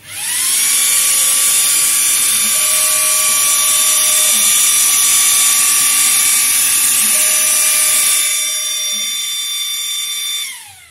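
Stepper motors of an XTOOL D1 Pro diode laser engraver whining steadily as the gantry moves the laser head around the frame outline of the job, with a high hiss over the whine. The pitch rises as the motion starts and glides down as it stops just before the end, and a second, lower tone comes in during two stretches.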